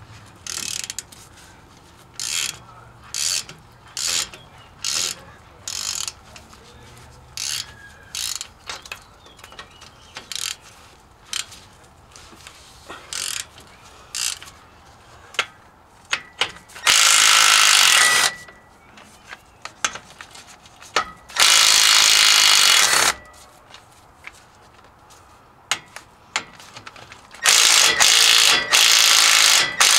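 Hand ratchet clicking in short strokes on the rear differential cover bolts, followed by three longer runs of a cordless power tool spinning bolts, each lasting a second or two.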